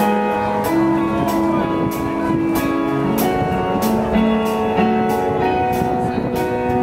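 Live rock band playing an instrumental passage with no vocals: held guitar and keyboard notes over drums, with a cymbal struck about twice a second.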